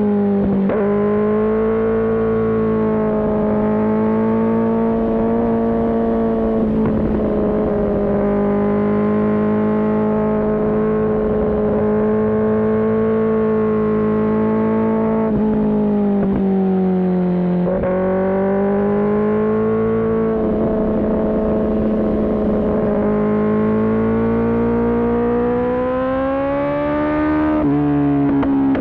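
Kawasaki ZX-10R inline-four engine running at high revs, its pitch holding, sagging and climbing again with the throttle. The pitch jumps abruptly at the very start, about 18 seconds in and near the end, as gears are changed.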